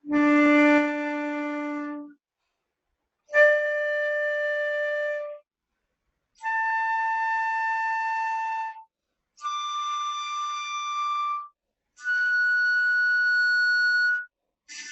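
Transverse flute playing harmonics over the low D fingering: five long held notes, each about two seconds with a short breath between, each higher than the last, climbing through the overtones of the one fingering to the fifth partial.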